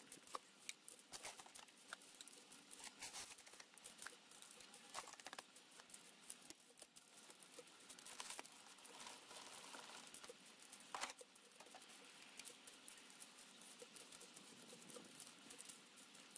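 Faint shovel and spade work in a foundation hole: soil and stones tipped in and scraped about, heard as irregular small clicks, crunches and scrapes, with one slightly louder knock about eleven seconds in.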